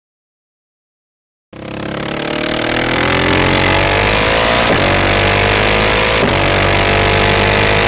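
KTM 690 SMC R's single-cylinder engine, Stage 2 tuned, running on the road: it cuts in abruptly about a second and a half in and pulls with its pitch rising slowly, then holds a steady speed, with two short breaks in the middle, under a rush of wind.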